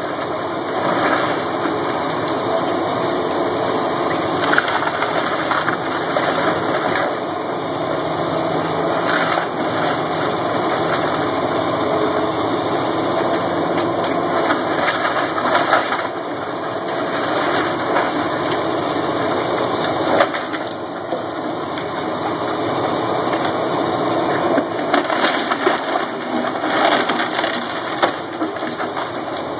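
Caterpillar tracked excavator's diesel engine running steadily under load as its bucket tears into a house, with wood cracking and debris crashing down at irregular moments.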